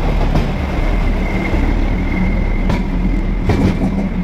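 Passenger train passing close by: a steady rumble of running gear, with wheels clacking over rail joints several times from a little under three seconds in. A faint thin high tone is heard between about one and two seconds in.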